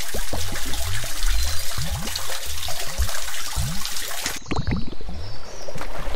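Thick liquid poured in a stream into a cup: a steady trickle with a run of short, low, rising glugs. The high hiss drops out abruptly about four and a half seconds in, while the glugging goes on.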